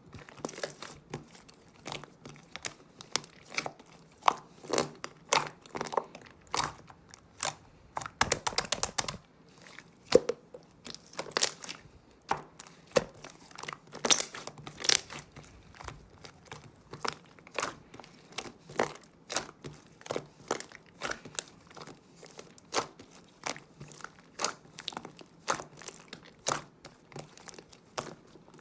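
Clear slime being squished and pressed by hand, giving sharp popping clicks about one or two a second, with a quick run of pops about eight seconds in.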